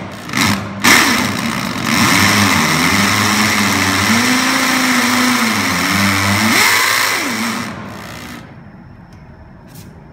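Corded hammer drill boring a pilot hole for a concrete anchor into a concrete floor. It starts with a few short trigger bursts, then runs steadily, its motor pitch sagging under load and rising again, and stops about eight seconds in.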